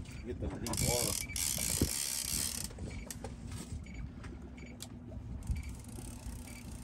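Fishing reel being cranked to bring in a fish, its gears clicking, over a low steady hum. A loud rushing hiss covers about the first two seconds.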